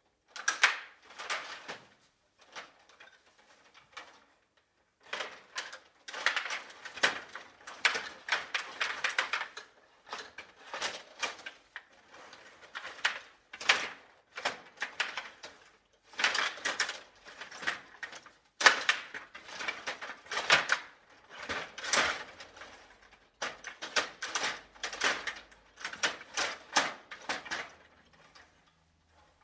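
Stiga Play Off table hockey game in play: rapid clicking and clattering of the steel rods, plastic players and puck, with sharp knocks, coming in bursts separated by short pauses.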